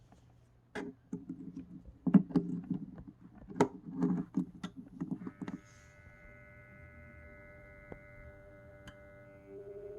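A few seconds of knocks and clicks from handling, then, about five seconds in, a steady whine of several held tones sets in: the cooling fan of a Bluetti EB3A portable power station making the strange noise its owner suspects may be a defect.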